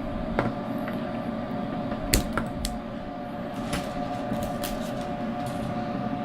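Several sharp clicks and taps of PLA filament being trimmed with cutters and handled, the strongest click about two seconds in, over a steady hum.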